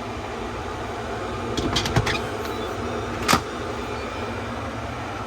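Steady mechanical hum like a fan or air conditioner, with a few light clicks about two seconds in and a sharper click a little over three seconds in.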